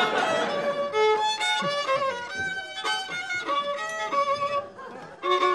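A violin playing a melody of short held notes, one after another. It falls away briefly about five seconds in, and a new note starts just before the end.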